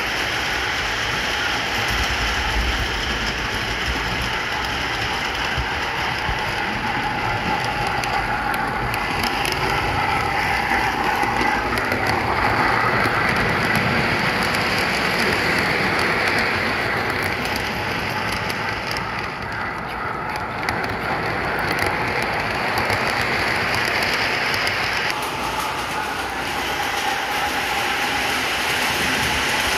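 O-gauge model train, an MTH Big Boy steam locomotive hauling a long consist of freight cars, rolling on three-rail track: a steady rumble and rattle of many wheels on the rails, a little louder in the middle stretch as the cars pass closest.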